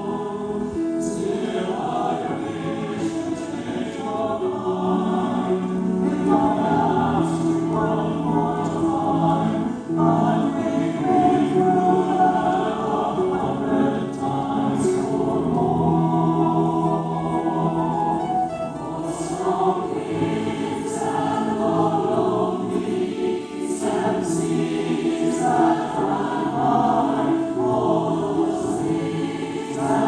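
Mixed choir of men and women singing a slow song in parts, with keyboard accompaniment.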